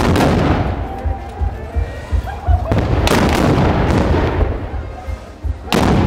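Black-powder guns firing blanks: three loud shots, one at the start, one about three seconds in and one near the end, each ringing out briefly afterwards.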